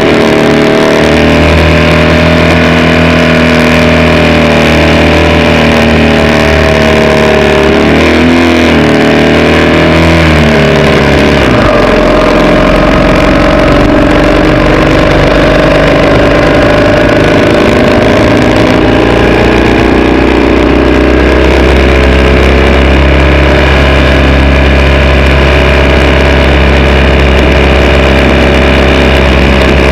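Racing vehicle's engine running hard, heard close up from onboard; its note shifts with the throttle and falls noticeably about twelve seconds in, then holds steady.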